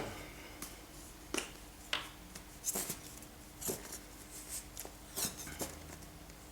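Scattered small clicks and taps, about a dozen at uneven intervals, some with a short crackle, from hands working with the water effects bottle and baking paper, over a faint steady hum.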